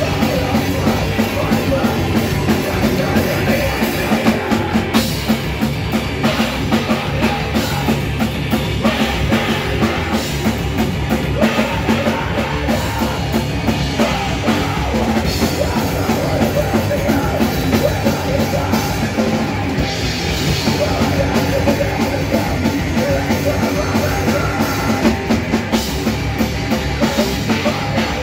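A heavy rock band playing live and loud: distorted electric guitar, bass guitar and drum kit, with a vocalist screaming into a microphone.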